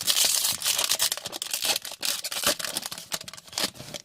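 Dense crinkling and tearing of a foil trading-card pack wrapper as it is torn open and handled.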